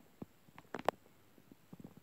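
Faint handling noise: a few soft clicks and taps, the sharpest a little under a second in and a small cluster near the end, as the phone filming the book is moved.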